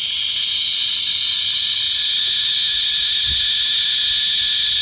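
Radiation Alert Inspector USB Geiger counter's audible clicker sounding as a steady high-pitched buzz, its counts so fast that they run together, slowly growing louder. The counter is held close to uranium-bearing torbernite, and the reading is in the thousands of counts per minute.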